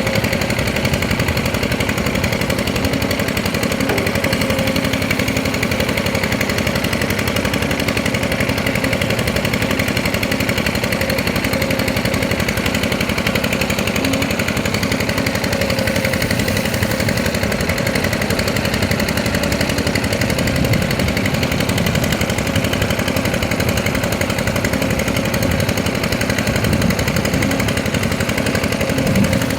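Kobelco SK200 hydraulic excavator's diesel engine running steadily with a fast, even pulse.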